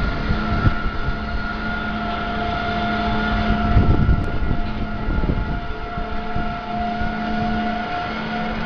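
Vekoma suspended looping coaster train climbing its chain lift hill: a steady mechanical hum from the lift, with a few pitched tones held steady, and gusty low rumbles of wind on the rider's microphone.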